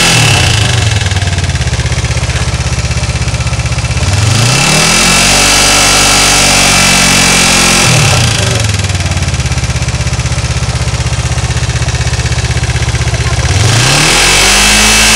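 Kawasaki GPZ 500S parallel-twin motorcycle engine idling, revved up and held for about four seconds before dropping back to idle, then revved up again near the end.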